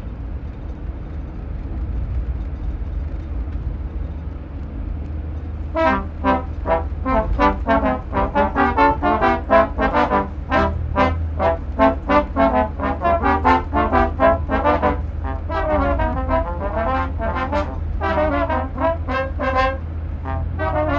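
A steady low rumble, then about six seconds in a trombone starts playing a quick, busy run of short notes that keeps going to the end.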